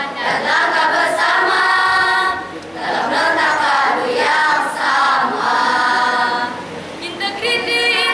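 Mixed school choir of teenage students singing together without instruments, in sustained phrases that dip briefly about two and a half and six and a half seconds in. Near the end, higher voices come in with a wavering line.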